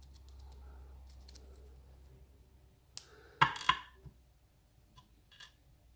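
Small metal clicks and taps as the parts of a disassembled lock cylinder and its pins are handled, with a louder short clatter about three and a half seconds in.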